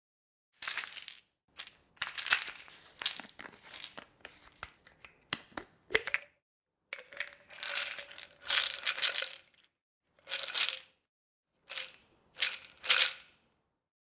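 Plastic pill bottle being handled, its cap worked open and shut, in a run of short bursts of clicks and rustling with silent gaps between them.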